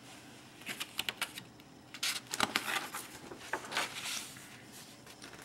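A hand turning the page of a large hardcover picture book: short crisp paper rustles and flicks, coming in a few small clusters.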